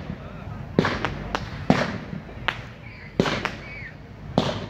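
Low-noise display fireworks bursting in the air: about eight sharp bangs at uneven intervals, with a steady low rumble between them.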